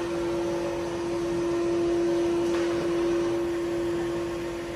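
Steady hum of factory machinery: one constant mid-pitched tone with fainter steady tones over a low hiss.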